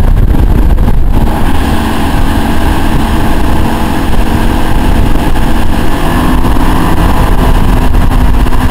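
Motorboat engine running steadily at towing speed, its steady hum under heavy wind buffeting on the microphone and the rush of the wake.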